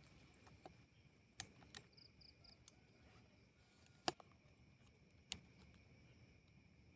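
Quiet night forest: faint steady insect trilling, broken by three sharp knocks or clicks, the loudest about four seconds in.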